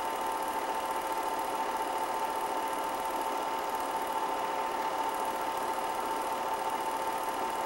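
Steady whirring and clatter of a film projector running, with a constant hum and no change in pitch or level.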